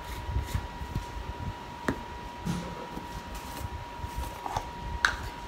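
Light taps and clicks of plastic spice jars and lids being handled over a thin steady tone, with a sharper knock about five seconds in.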